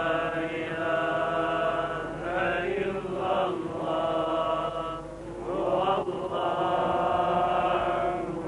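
Islamic religious chanting: long, held melodic vocal notes, with brief breaks and gliding changes of pitch about two seconds and again about five seconds in.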